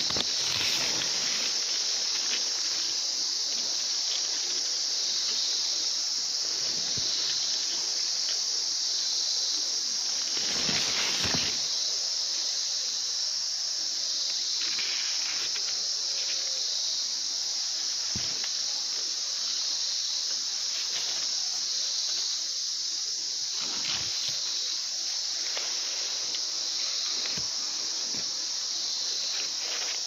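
Steady, high-pitched chorus of insects, with a few brief rustles of maize leaves brushing close by; the loudest rustle comes about eleven seconds in.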